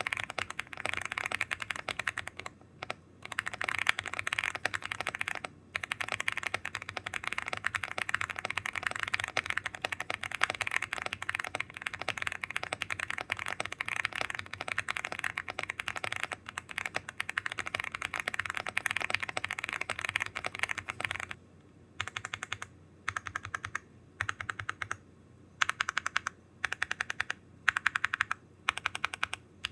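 Velocifire BK75 gasket-mounted 75% mechanical keyboard with PBT keycaps being typed on fast and continuously. About two-thirds of the way through the typing breaks into short runs of keystrokes with brief pauses between them.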